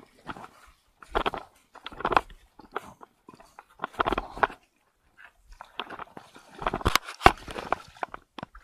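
Legs wading through shallow seawater, each stride a short splash, about one a second, with a quicker run of sharper, louder splashes near the end.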